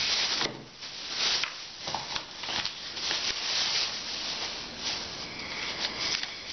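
Thin clear plastic bag crinkling and rustling as it is handled and pulled off a packed item, an irregular crackle that goes on throughout.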